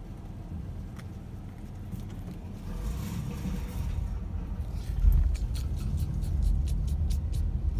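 Low rumble of a car heard from inside the cabin, growing louder about halfway through, with a quick run of light ticks near the end.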